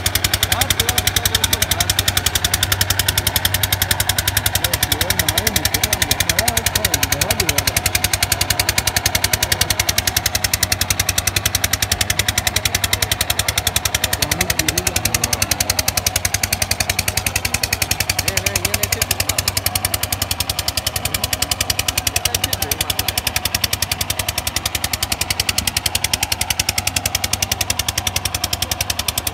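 Engine running steadily with a fast, even chugging beat.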